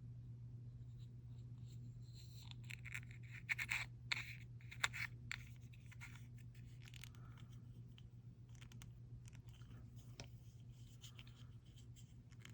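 Small plastic jar of chrome nail powder being handled and its screw lid twisted: scratchy scrapes and light clicks, most of them between about two and five seconds in, over a steady low hum.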